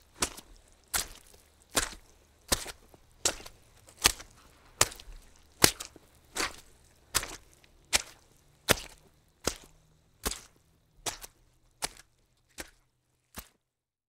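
Footsteps walking through mud at a steady pace, a little over one step a second. The steps grow fainter over the last few seconds.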